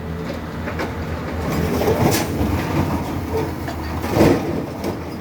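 Heavy farm machinery running: a steady low engine drone with irregular metallic clanks and rattles, the loudest knock about four seconds in.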